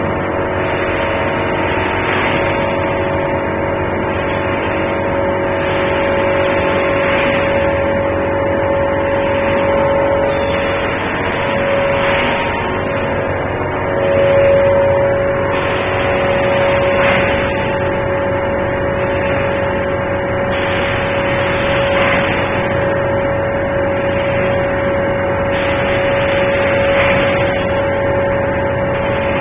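Pulp-moulding egg tray production line running: a steady machine hum with a strong held tone, and a hissing surge about every five seconds.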